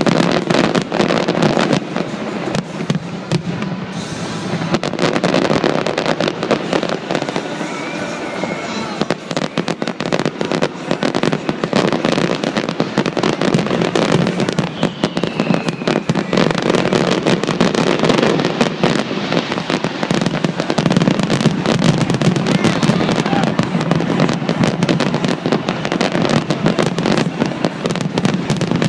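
Aerial fireworks shells bursting in rapid, continuous succession: a dense barrage of booms and crackles that thickens partway through.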